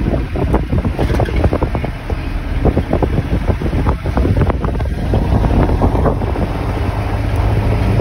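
Bus under way, heard from inside beside an open window: a steady low engine and road rumble with many quick rattles and knocks, and wind blowing on the microphone.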